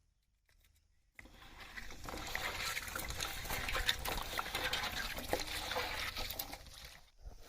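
Water pouring and splashing, with many small clicks, starting abruptly about a second in and dying away near the end, as vegetables are washed.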